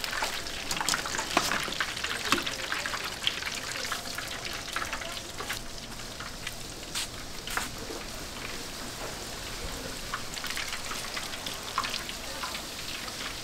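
Battered twigim deep-frying in hot oil: a steady sizzle with many small crackling pops.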